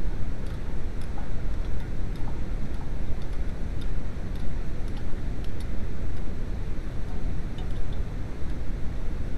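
Small, irregular metallic clicks of hand wrenches working the bolts of a rear disc brake caliper, over a steady low rumble.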